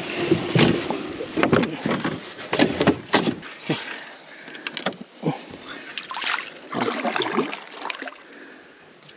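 Canoe on the water: irregular paddle splashes and hollow knocks against the hull, a stroke or bump every half second to second.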